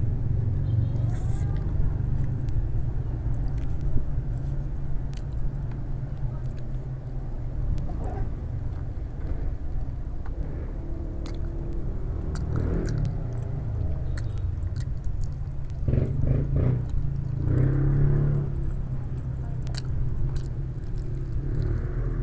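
A person chewing and biting into fried chicken, with short wet mouth clicks, over a steady low rumble.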